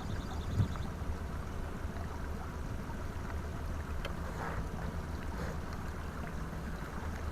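Pontoon boat underway at trolling speed: a steady low motor hum under a wash of wind and water noise, with one short knock about half a second in.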